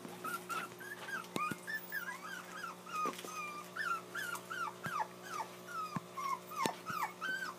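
Young puppies whimpering and crying in a quick run of short, high, bending whines, several a second, with a few light knocks among them.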